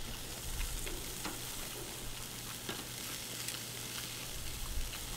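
Chicken pieces sizzling steadily on a charcoal grill grate, with a few light clicks.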